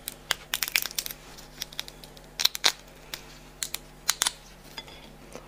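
Cooked crab shell cracking and snapping as the body is pulled apart by hand: a string of sharp, irregular clicks and cracks.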